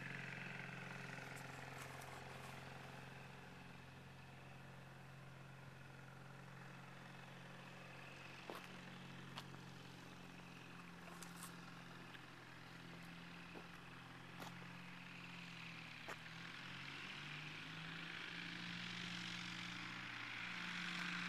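Kitfox light aircraft's engine and propeller running, a faint steady drone that changes pitch a few times after about 17 seconds and grows louder near the end.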